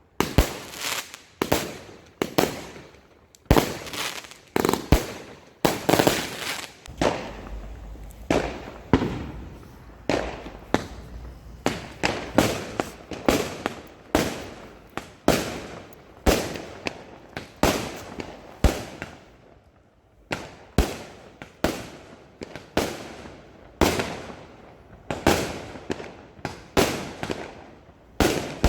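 Aerial fireworks going off in a steady barrage: sharp bangs one or two a second, each ringing out and echoing briefly before the next.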